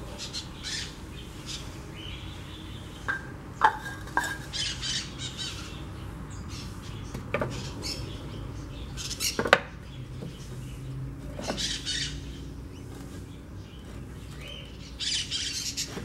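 Birds calling in short, repeated squawks, with a few sharp knocks, the loudest about four and nine and a half seconds in, from the wooden stool and PVC pipe being handled.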